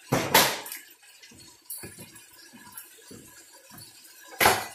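Cooking noises at a stovetop pan of fresh spinach: a short loud burst of hissing noise near the start and another near the end, with faint soft knocks between.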